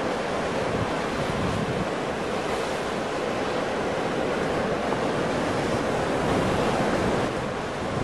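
Ocean surf: waves breaking and washing in as a continuous rushing noise, swelling slightly about six seconds in.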